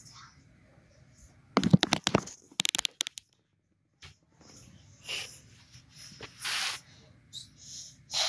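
A toddler's hands tapping and knocking on a wooden crib rail: a quick flurry of sharp knocks about a second and a half in, then a second run of lighter taps. Soft hissing rustles of hands on the crib bumper and bedding follow.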